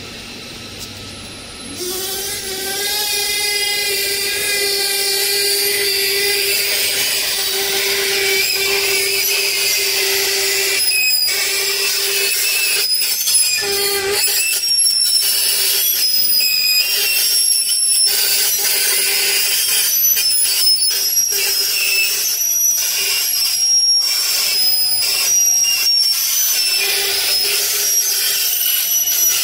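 Screw flight cold rolling machine running: a steady motor hum sets in after a short rise about two seconds in. Over it come shifting high-pitched squeals and scraping ticks as the steel strip is rolled into a spiral flight between the rollers.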